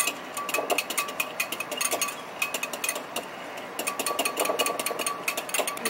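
Whipping cream being hand-whisked in a bowl: a fast, nonstop run of clinks from the whisk striking the bowl, several a second.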